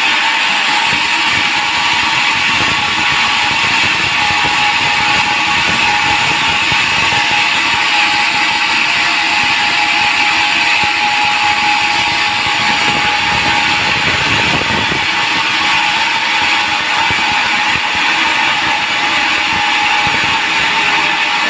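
Sawmill saw running steadily through a teak log, a continuous machine whine with a high-pitched ringing edge and no breaks.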